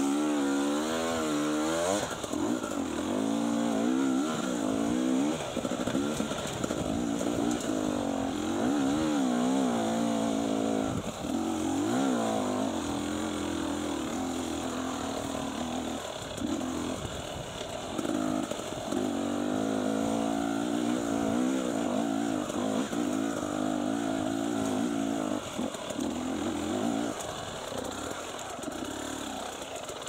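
Enduro dirt bike engine revving up and down over and over as the throttle is worked on a rough, rocky climb, its pitch rising and falling every second or two.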